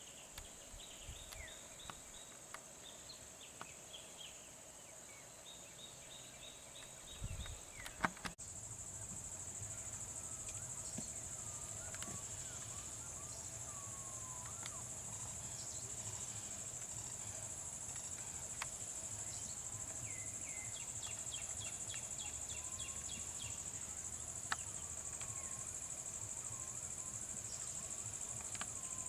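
Steady, high-pitched chorus of insects, with short repeated bird chirps over it. About eight seconds in there is a sharp knock, and then a low steady hum joins the chorus.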